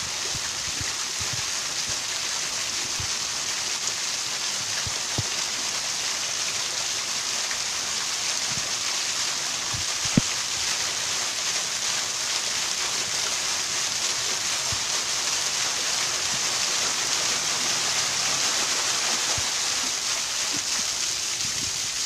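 Waterfall: water falling and splashing in a steady hiss, with one brief sharp knock about halfway through.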